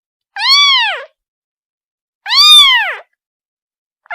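Kitten meowing to call its mother: two loud, high-pitched meows about two seconds apart, each rising and then falling in pitch, with a third starting at the very end.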